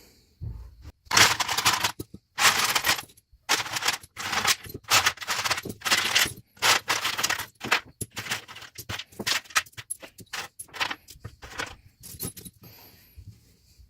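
Loose steel nuts and bolts, fresh from an apple cider vinegar soak, clattering and scraping against each other in a run of irregular bursts as they are handled and dried off.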